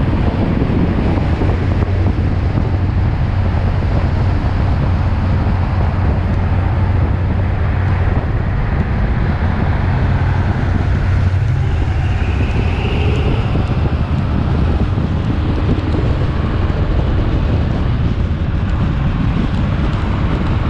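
Car engine droning steadily while cruising, with road noise and wind buffeting the microphone.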